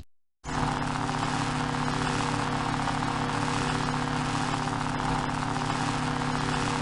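Lightsaber sound effect: the steady electric hum of an idling blade. It starts about half a second in and holds unchanged at one pitch.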